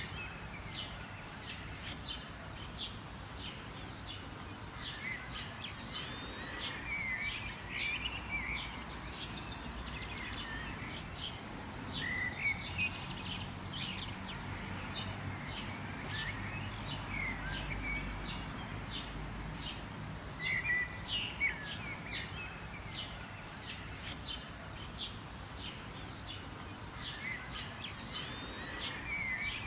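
Several birds chirping and calling in quick, repeated short notes and brief glides, over a steady low background noise.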